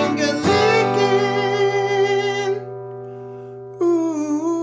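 Outro music: a strummed guitar chord is left ringing and fades away, then a held note with a slight waver comes in near the end.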